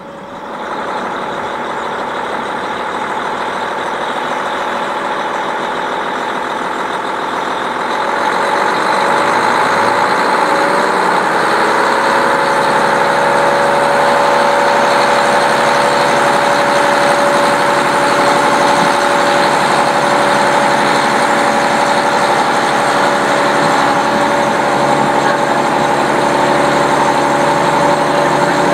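KiHa 40 diesel railcar's engine working hard as the train accelerates, heard through an open window. It rises sharply about a second in, grows louder again around eight to ten seconds in, then holds steady.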